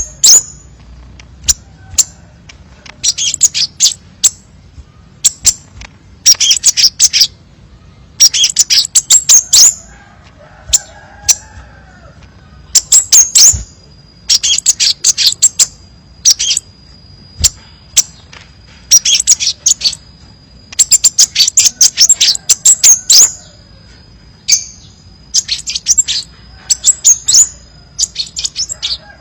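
Crimson sunbird singing: bursts of rapid, sharp, high chirps and trills, repeated every second or two with short pauses between. A faint, steady, thin high tone runs beneath them through the second half.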